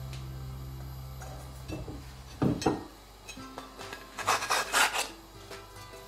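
Wooden spatula scraping across a non-stick frying pan as a cooked flatbread is slid out onto a plate: one short scrape about midway, then a quick run of several more a second or two later, over background music.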